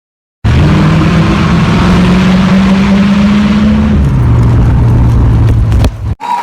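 A loud vehicle engine cuts in suddenly, running at steady high revs, drops to a lower steady speed about four seconds in, and cuts off abruptly near the end.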